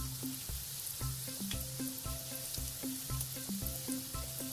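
Empanadas deep-frying in plenty of hot oil, a steady sizzle, under background music with a steady beat of about two pulses a second.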